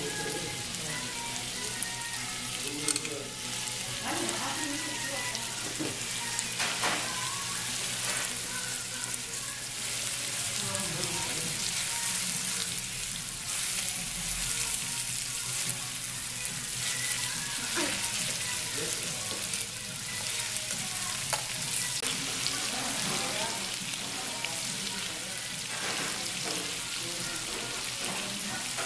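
Beef small and large intestines (sogopchang and daechang) sizzling steadily in a hot pan with onion and mushrooms. A few short sharp clicks come now and then as metal tongs move the pieces.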